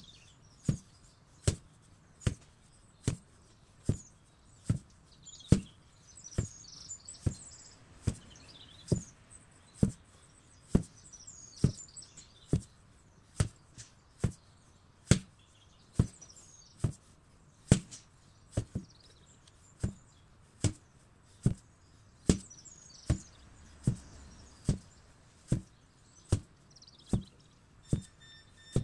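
An 8 kg sledgehammer striking over and over in a steady rhythm, a little over one blow a second, with birds chirping between the blows.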